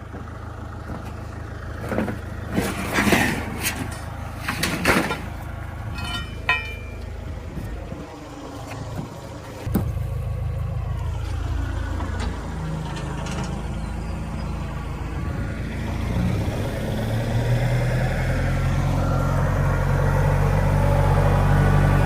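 Engine of a fork-fitted loader machine running steadily, with a few sharp knocks and rattles in the first five seconds. It gets louder after about ten seconds and revs up again near the end, as if working under load.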